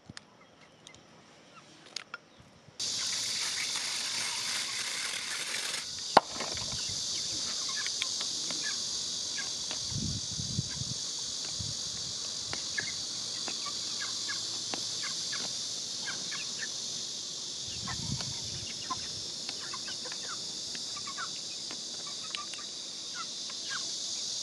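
Dense, steady chorus of insects buzzing, starting abruptly about three seconds in after a few faint clicks, with short chirps scattered through it.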